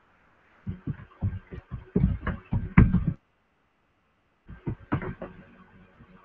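A quick, irregular run of muffled thumps and knocks lasting about two and a half seconds, then a few more after a short pause.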